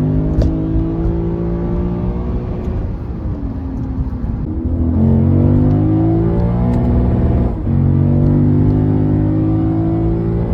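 Lexus IS500's V8 exhaust under acceleration, its pitch climbing slowly. It falls off about three seconds in, climbs again from about five seconds, and drops sharply at an upshift about seven and a half seconds in before climbing once more.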